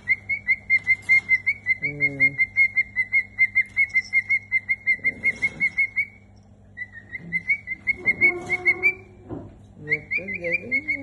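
Cockatiel calling in a fast run of short, high chirping notes, about eight a second, breaking off briefly about six seconds in and again near the end before starting up once more.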